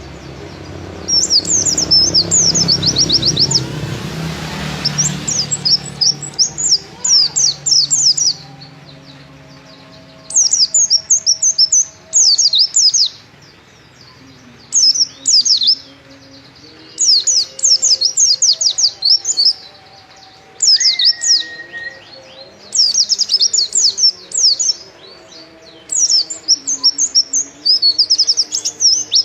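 A white-eye (pleci) singing vigorously: repeated one-to-two-second phrases of rapid, high, sweeping notes, broken by short pauses.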